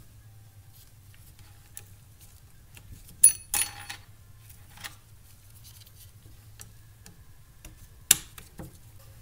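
Sharp plastic-and-metal clicks and small clinks, two loud ones a little over three seconds in and another near the end, as fuel injectors and their little black retaining clips are fitted onto an LS V8 fuel rail. A low steady hum lies underneath.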